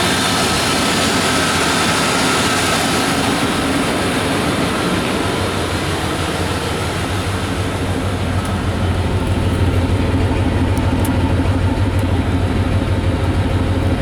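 1994 Chevy Silverado's 350 V8 idling, its exhaust a low, rapid pulsing that grows louder about two-thirds of the way in. The engine is running very rich, and the owner suspects an intake or manifold leak that lets coolant into the intake.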